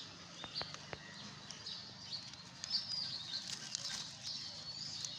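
Small birds chirping and twittering all through, with a few sharp clicks and light rustling close by, most of the clicks in the first second.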